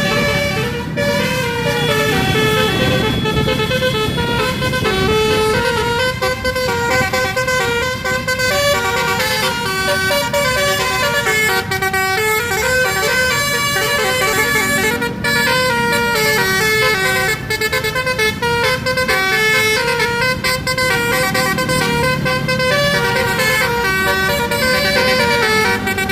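Bus 'telolet' horn playing a tune: a long string of multi-tone horn notes stepping up and down in pitch, one after another with only brief breaks, over a low rumble.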